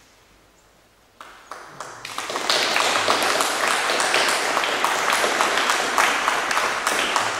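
An audience applauding after a ribbon-cutting. Scattered claps start about a second in and swell within a second into steady, full applause.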